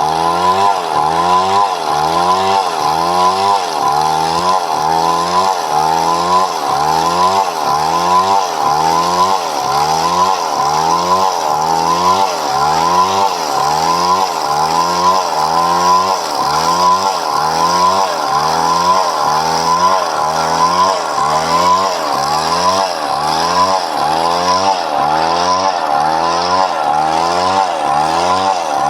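Chainsaw cutting padauk wood, its engine running under load with the pitch rising and falling evenly about once a second.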